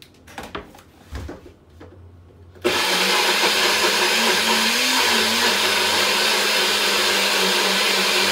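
A few light knocks, then a countertop blender switches on abruptly about three seconds in and runs steadily, pureeing a jerk seasoning paste with oil added. Its motor pitch wavers briefly midway as the mix shifts.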